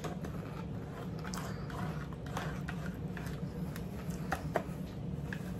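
Eating sounds at a table: chewing of a crunchy cucumber salad with scattered small clicks and taps of forks on plates, over a low steady hum.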